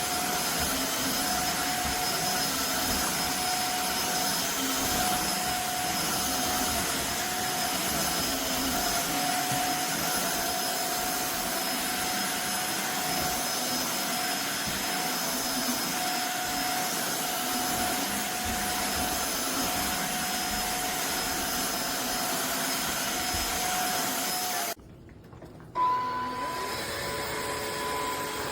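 Tineco wet-dry cordless floor cleaner running steadily, its motor making an even whine. About 25 seconds in it cuts off abruptly, and after a click a different steady hum with a higher tone starts.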